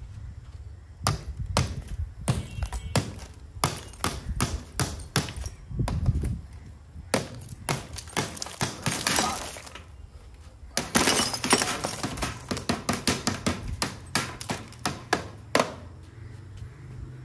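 A pipe knocking again and again on the heat-cracked glass screen of an old CRT television, with the glass breaking and shards falling in two longer crashing stretches past the middle. The repeated sharp knocks go on until shortly before the end.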